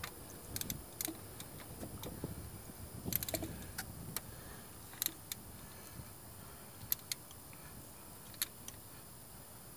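Light metallic clicks and clinks of a hand ratchet and socket working a bolt in an engine bay, with a quicker run of clicks about three seconds in.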